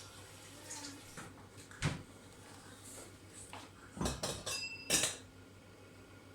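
Kitchenware being handled: a few sharp clinks and knocks, one about two seconds in, a cluster around four seconds with a brief high ringing tone, and one more about five seconds in.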